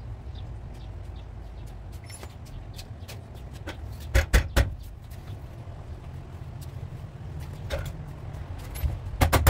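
Scattered metal knocks and clatter from a stripped car body shell being worked on by hand, with a close group of three loud knocks about four seconds in, over a steady low hum. Near the end, rapid, even hammer blows on sheet metal begin.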